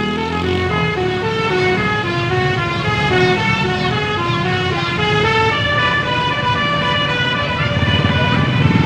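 A bus's 'telolet basuri' musical horn playing a tune of short held notes that step up and down in pitch. The bus engine rumbles underneath, louder near the end as the bus passes.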